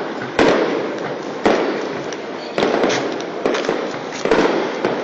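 Aerial firework shells bursting overhead: about six sharp bangs, roughly one a second and two close together near the middle, each followed by a rolling echo that fills the gaps.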